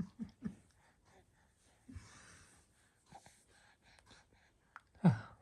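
Soft breaths, gasps and short vocal sounds from a person, with a brief voice sound falling in pitch near the end.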